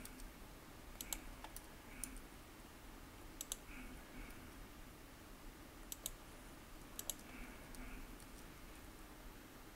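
Faint computer mouse and keyboard clicks from working at a computer, sharp clicks mostly in quick pairs every second or two, over quiet room tone.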